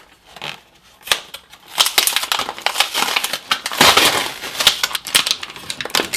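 Small plastic toy game being handled, a dense, irregular crackling and clattering of plastic parts.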